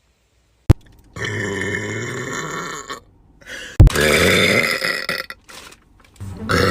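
A young woman burping: two long, deep, drawn-out burps, each starting with a sharp click, and a third beginning near the end.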